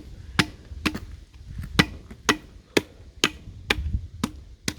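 A blade chopping through a whole hog's ribs beside the spine, splitting the carcass to lay it open flat: a steady run of about ten sharp chops, roughly two a second.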